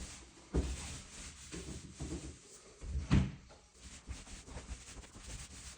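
Scuffs and rubbing as stain is worked by hand on a wood floor, with a sharp knock about three seconds in. An electric fan's low, steady hum runs underneath.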